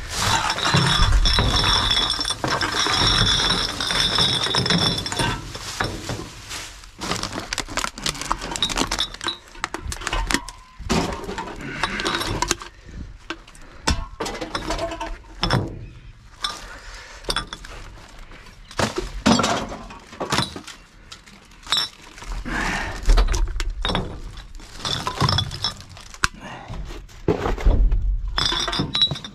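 Glass bottles and other containers clinking and clattering in quick, irregular knocks as they are rummaged through and handled.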